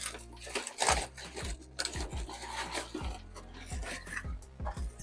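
A cardboard package being opened and its contents handled: irregular scraping, rustling and light knocks.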